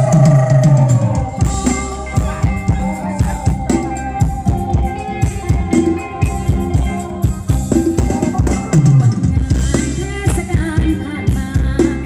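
Live Thai ramwong dance band playing, with a drum kit keeping a steady beat under sustained melody notes.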